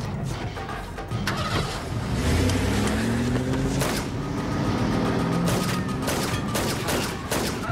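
A car engine revving, rising in pitch as the car drives off. Near the end, a rapid run of gunshots starts.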